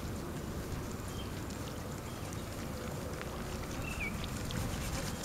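Steady low rumble of wind and water on an open river, with a few faint ticks and one short high chirp about four seconds in.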